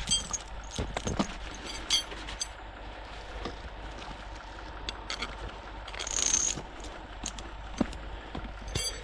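Steel choker chain clinking and rattling as it is handled and wrapped around a log, in scattered metallic clicks, with a short scraping rush about six seconds in. A low steady rumble runs underneath.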